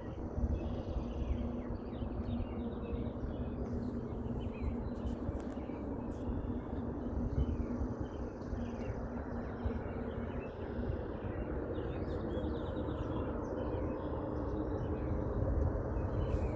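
Unexplained low droning hum from the sky, holding a steady tone over a constant low rumble, with small birds chirping over it.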